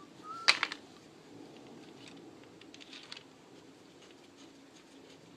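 A sharp metallic clink about half a second in, followed by a few lighter clicks and scattered faint taps: metal engine parts and hand tools being handled during timing-chain work.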